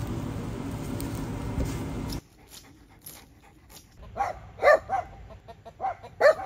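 Wood fire burning in a stove's firebox, a steady low rumble with a few crackles, cut off abruptly about two seconds in. After a quieter stretch come about five short, sharp animal calls in the last few seconds, the loudest two about a second and a half apart.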